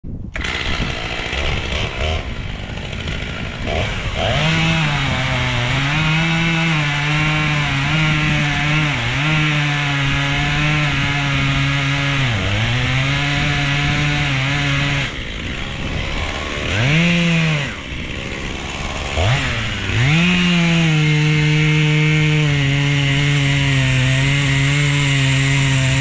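Two-stroke chainsaw making a felling cut in a tree trunk at full throttle, its pitch sagging and recovering as the chain loads up in the wood. About 15 seconds in it drops back, revs up sharply twice, then runs steady and high near the end.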